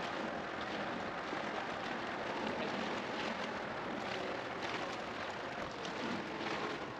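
Wind-driven chop splashing and washing against a rocky shoreline, a steady rushing noise with small splashes scattered through it, under a strong wind.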